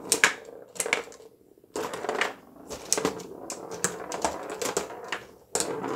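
Tabletop foosball game in play: the plastic players and metal rods clack and rattle against the ball and the table in quick flurries, with several sharp knocks.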